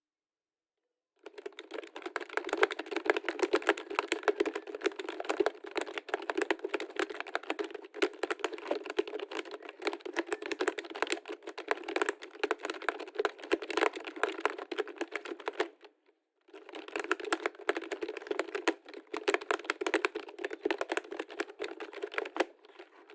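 Fast, continuous typing on a computer keyboard, a dense stream of key clicks. It starts about a second in, breaks off for a moment about sixteen seconds in, then resumes and stops just before the end.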